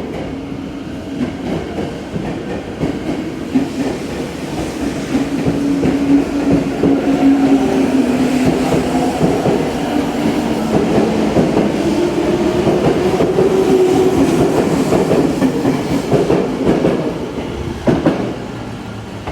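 Tozai Line train moving through the station, wheels clacking over rail joints under a motor whine that shifts in pitch. It grows louder over the first few seconds, then fades toward the end, with a sharp knock near the end.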